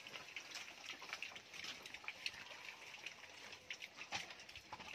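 A group of piglets eating from a shared rubber feeding pan: a faint, irregular patter of chewing and slurping smacks.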